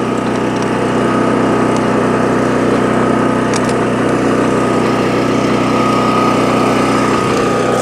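Small gasoline engine of a vacuum unit running steadily, driving a Gardner Denver 3LR vacuum blower, with a steady high whine over the engine hum.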